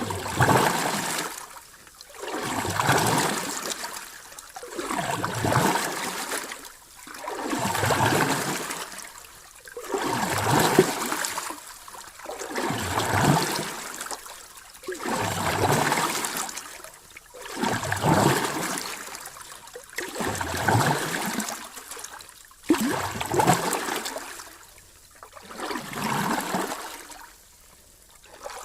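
Ocean waves washing in and drawing back, a swell of surf noise about every two and a half seconds in a steady rhythm.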